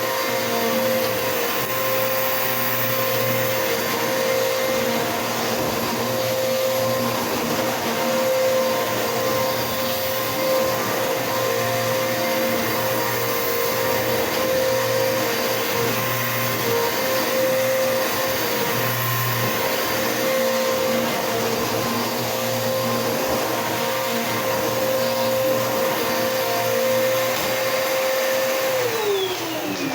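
Bissell PowerForce Bagless 6583 upright vacuum cleaner running with a steady motor whine. It is switched off near the end, and the pitch falls quickly as the motor winds down.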